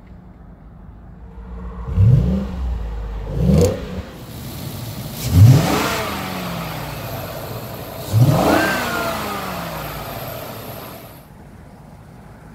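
A 2012 Ford F-150's 5.0L V8 being free-revved in park, four throttle blips. Each rev climbs quickly and then falls back to idle. The last two are held longer, and the engine settles back to a quiet idle near the end.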